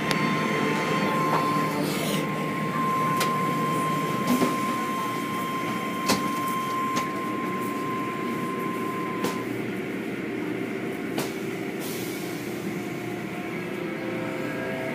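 Automatic tunnel car wash running: a steady mechanical rush of motors and water spray as the cloth curtains sweep over a car, with a few sharp knocks. A thin steady whine stops about two-thirds of the way through.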